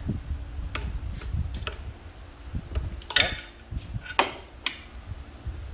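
Metal hand tools clinking and being handled, with a few light clicks and two louder ringing metal clanks about three and four seconds in.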